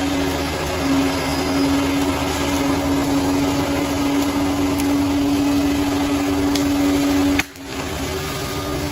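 Bulldozer running under steady load with a strong, even whine. About seven and a half seconds in the sound cuts off sharply, then resumes quieter with a rougher machine sound.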